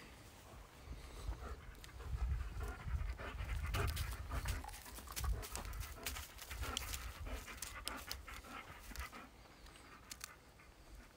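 A dog panting close to the microphone, with scattered clicks and scuffs mixed in.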